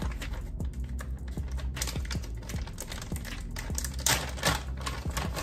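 Plastic bag of shredded cheese being handled and pulled open, crinkling and clicking, with a louder crinkle about four seconds in. Background music runs underneath.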